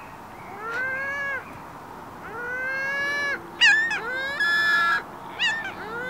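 Ring-billed gulls giving a series of long, drawn-out mewing calls, about six in all, some higher and shorter, two of them overlapping near the middle.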